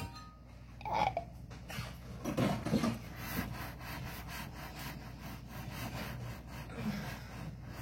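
A kitchen utensil scraping rhythmically, about four strokes a second, as in stirring or mixing by hand.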